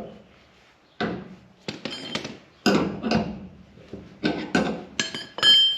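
About ten irregular metallic taps and clanks of hand tools against steel latch hardware as a part is worked into place, the later ones leaving a short ringing tone.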